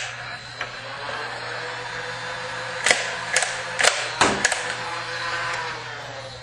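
Nerf Barricade RV-10's battery-driven flywheels switching on with a click and spinning up to a steady whir. About three seconds in come several sharp clicks and knocks, the blaster firing and darts striking.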